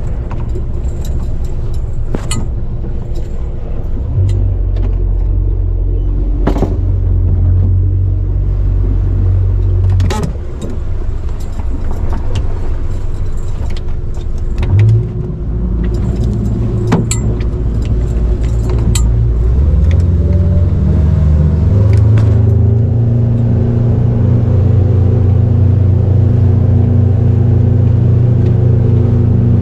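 Boat engine running, its pitch stepping up a little twice, then rising smoothly over a few seconds as the throttle opens and holding at higher revs. A few sharp knocks and rattles are scattered through.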